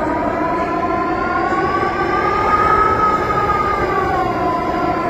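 Storm wind from a violent windstorm howling, with a whistling tone that rises in pitch around the middle and falls back, over a steady rush of wind.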